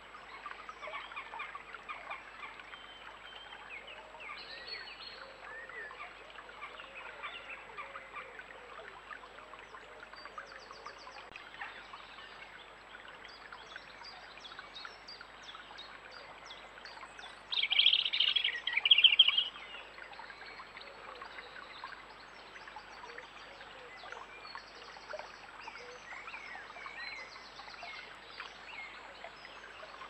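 Shallow stream running, with small birds calling and singing over it; about halfway through, a loud harsh bird call lasts roughly two seconds.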